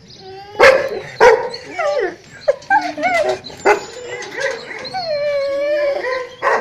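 Dogs barking, whining and howling: two sharp barks in the first second and a half, then high, wavering whines, and a longer howling whine near the end.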